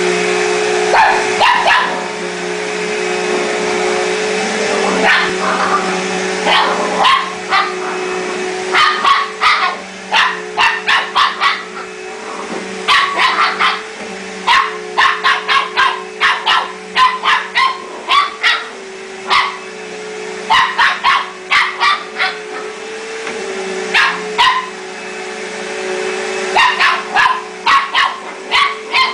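Upright Hoover vacuum cleaner running with a steady hum while a small dog barks at it in quick volleys of several barks, again and again.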